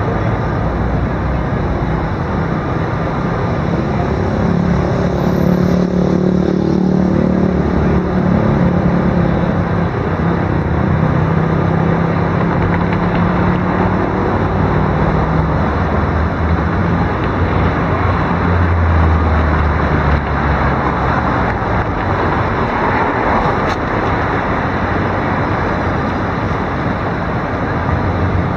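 Steady city traffic noise from cars passing along the street, with low engine hum swelling a few times.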